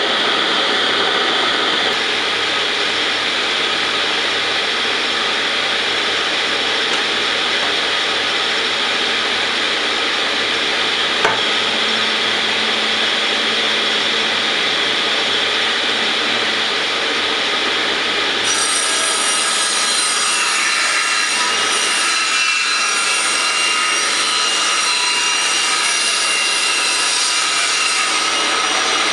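A power tool cutting into a hardwood blank, running without a break.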